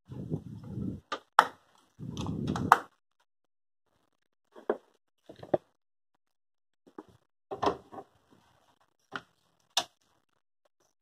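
Hands handling a desktop PC case and its parts: two short rubbing, rustling stretches with sharp clicks in the first three seconds, then scattered single clicks and knocks as cables are handled and plugged in at the back of the case.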